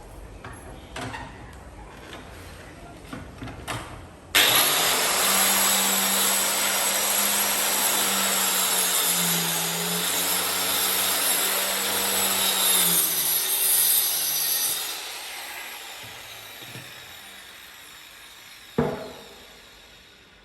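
Electric power saw cutting wood: it starts suddenly about four seconds in and runs loud with a steady motor whine that dips briefly under load, then winds down and fades. A few light knocks come before it, and one sharp knock near the end.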